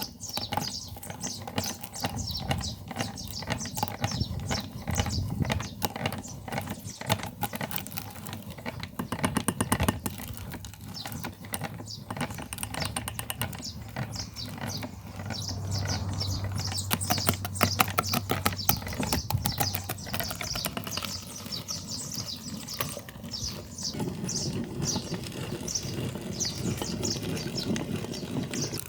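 Electric meat grinder running with a steady low hum, and a dense crackling and clicking as material is forced through it.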